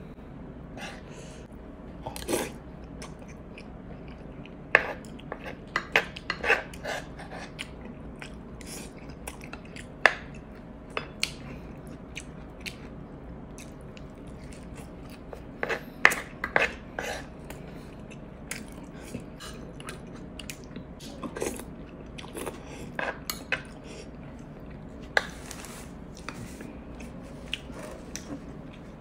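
Close-miked mukbang eating sounds: a spoon scraping and clinking on a dish, and biting and chewing into crispy fried food with irregular crunches and wet chewing.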